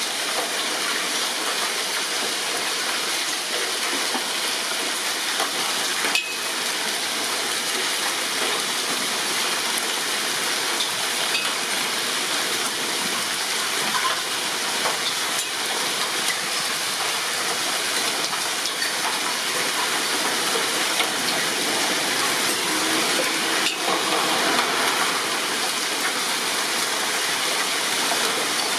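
Heavy rain with hail pouring down: a dense, steady hiss scattered with small hard ticks of hailstones striking, a little heavier after about twenty seconds.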